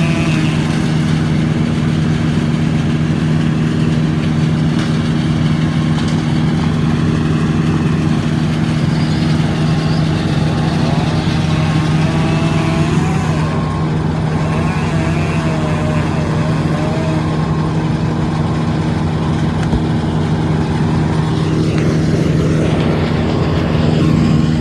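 An engine running at a steady speed with a constant low hum, cutting off at the very end.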